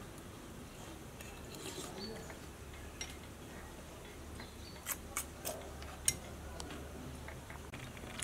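A metal spoon clinking lightly against a ceramic bowl: four quick clicks a little past the middle, the last the loudest, over faint steady background noise.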